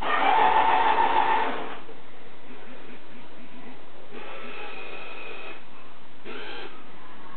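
Small electric motors of a model RC snowplow truck whirring in short bursts as the plow blade is moved; the first burst, right at the start and lasting about a second and a half, is the loudest, followed by two fainter ones.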